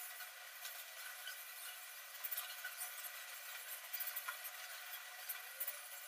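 Faint scratchy rustling with a few light clicks, from cockatiels preening each other on a perch in a wire cage.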